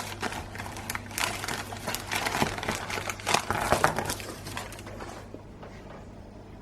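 Crinkling and rustling of an advent calendar's cardboard and plastic packaging being opened and handled, dying away about five seconds in.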